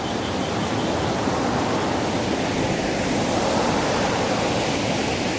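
Waterfall with water pouring and splashing, a steady rushing noise.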